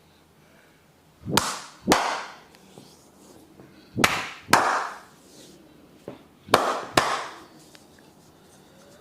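Massage slaps: three pairs of sharp hand slaps on the body, the two in each pair about half a second apart and the pairs about two and a half seconds apart.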